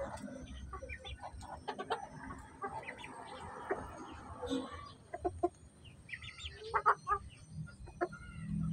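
Bantam chickens clucking softly while they feed, with a few louder clucks about five to seven seconds in. Scattered short taps run through it, from beaks pecking at grain on the dirt.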